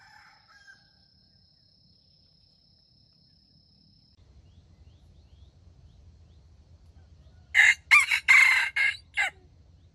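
Red junglefowl rooster crowing once near the end, a short crow of under two seconds broken into a few clipped syllables.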